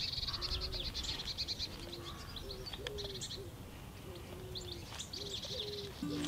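Birdsong: a pigeon cooing in low, repeated phrases, with small birds chirping and trilling high above it.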